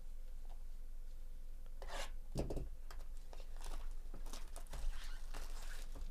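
Gloved hands handling a sealed cardboard trading-card box and tearing its plastic shrink wrap: a run of short rustles, crinkles and scrapes starting about two seconds in, with a dull bump of the box shortly after.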